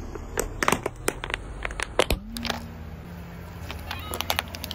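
Plastic toy guitar cracking and snapping as a car tyre rolls over and crushes it: a run of sharp cracks in the first two seconds and another near the end, over a low steady rumble from the car.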